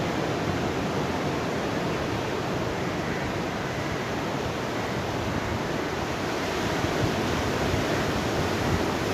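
Sea surf washing onto a beach: a steady, even rush of waves.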